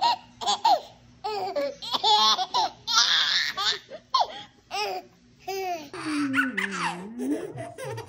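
A baby laughing in a run of short, high-pitched bursts.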